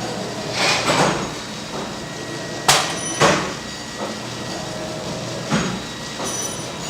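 Five sharp metallic knocks at uneven intervals, as iron bars are struck or handled at an induction forging heater. Under them runs the machine's steady hum with a faint high whine.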